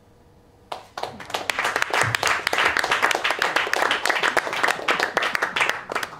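A small audience applauding, the clapping starting suddenly under a second in and thinning out near the end.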